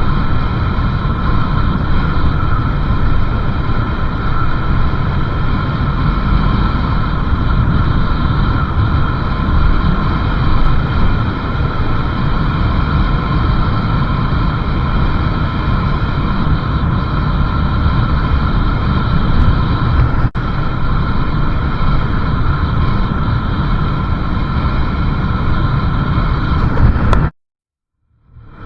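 A motorcycle running steadily on the road, its engine mixed with heavy wind rushing over the microphone. The sound cuts out completely for about a second near the end, then comes back.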